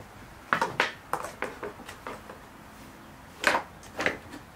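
Hard plastic clicks and knocks as a 3D-printed air inlet duct is handled and pressed into place around a car's radiator: several quick ones in the first second and a half, and two louder knocks about three and a half and four seconds in.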